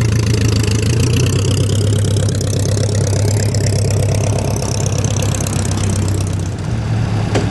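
Engines of vintage cars running at low speed as a hot rod roadster pickup and then a 1920s sedan roll slowly past, a steady low hum throughout. A single short click near the end.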